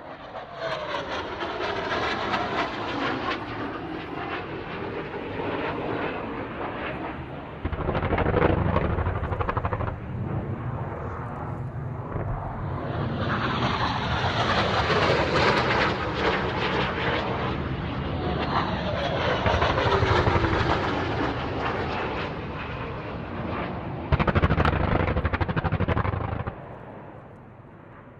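RAF Harrier jump jets flying over, their Rolls-Royce Pegasus turbofans making a loud jet noise with a high whine that falls in pitch as each one passes; several passes follow one another, the noise jumping louder near 8 s and 24 s and fading away at the end.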